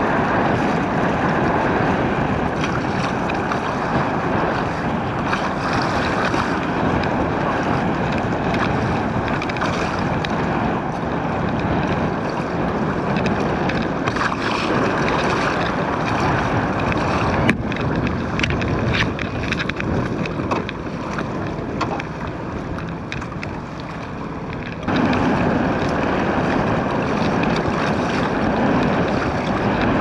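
Wind buffeting the microphone over choppy water slapping against a fishing kayak's hull, a steady rushing noise. It gets abruptly louder about 25 seconds in.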